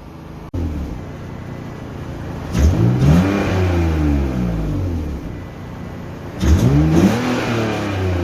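BMW E46 330Ci's 3.0-litre inline-six idling and blipped twice, the revs rising and falling, about two and a half and six and a half seconds in. A faint high screech rides on the revs: the worn drive belt slipping at higher RPM.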